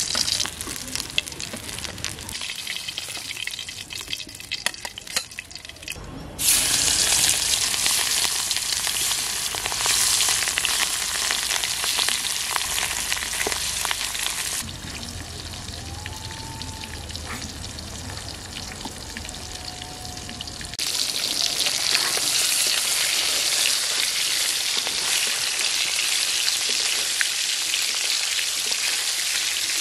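Rohu fish steaks sizzling in hot mustard oil in an aluminium karahi, a metal spatula clicking and scraping against the pan as the pieces are turned. The sizzle jumps louder about six seconds in, drops back for a stretch from about fifteen seconds, and rises again about twenty-one seconds in.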